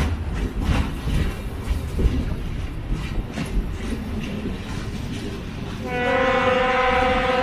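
A steam locomotive on the move, a low rumble with uneven knocks; about six seconds in its whistle starts, one steady held note.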